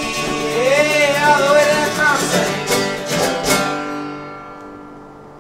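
Closing bars of an acoustic folk song: strummed acoustic guitar under a held, wavering melody line, then a last chord about three and a half seconds in that rings out and fades away.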